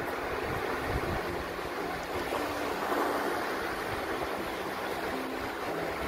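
Shallow sea surf washing steadily over a sandy beach, with water swishing around the legs of someone wading through it.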